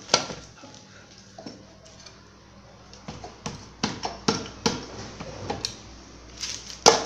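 Sharp clicks and knocks of a Royal Enfield UCE engine's aluminium crankcase halves being handled and seated together, one loud knock at the start, then a run of taps about two to three a second from about three seconds in and a quick cluster near the end.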